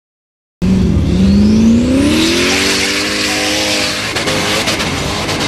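Formula Offroad buggy's engine revving hard under acceleration across dirt, with the hiss of its spinning tyres throwing dirt. It cuts in abruptly about half a second in, the pitch climbs steadily, then drops about four seconds in.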